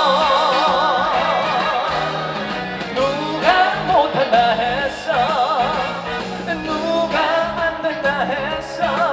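Male trot singer holding long notes with wide vibrato over a band accompaniment, in a live stage performance of a trot song.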